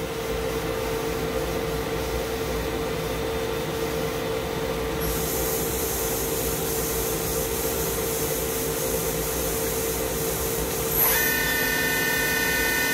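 Swistek RB20Y CNC Swiss lathe running under power, with a steady machine hum. A high hiss joins about five seconds in. About eleven seconds in there is a click, and a steady whine of several tones sets in.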